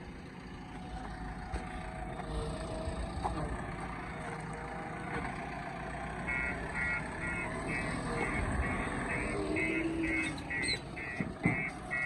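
Diesel engine of a JCB 3DX backhoe loader running steadily, with a reversing alarm beeping about twice a second from about halfway through, and a single knock near the end.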